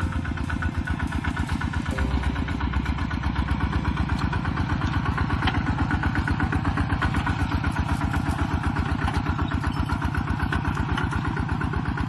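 Kubota RT-120 walking tractor's single-cylinder diesel engine running steadily with a rapid, even chugging while it pulls a disc plough through the soil.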